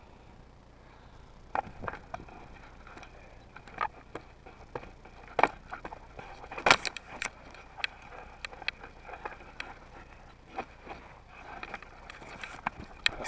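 Footsteps and movement through dry brush: irregular crunches and snaps of dry twigs and grass, the loudest a little after five and a half and near seven seconds in.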